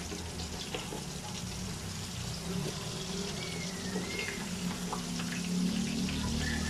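Round scad (galunggong) frying in hot oil in a steel wok: a steady sizzle and crackle, with a few light clicks of a slotted metal spatula against the pan.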